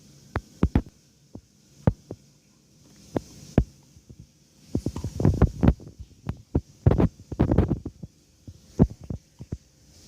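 Hiccups: a run of short, sharp sounds at uneven spacing, sometimes several within a second, with a few longer, noisier bursts in the middle.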